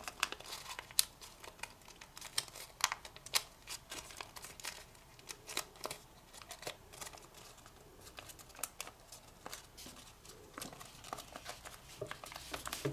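Origami paper (kami) crinkling as fingers pinch and curve a folded model to round it: a scatter of short, light crackles.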